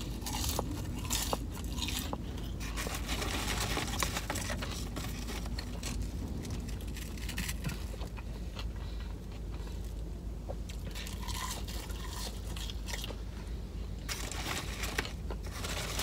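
Close-up chewing and crunching of seasoned French fries dipped in ranch, with many small crisp crackles. The crunching is busiest in the first few seconds and again near the end, with quieter chewing between.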